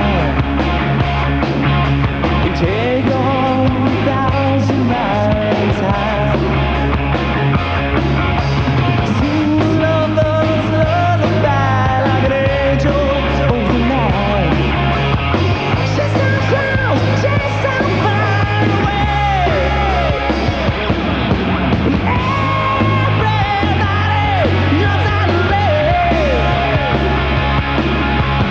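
Hard rock band playing live: a male singer's voice over electric guitars, bass guitar and drums, with a pitch-bending sung melody line over steady bass notes.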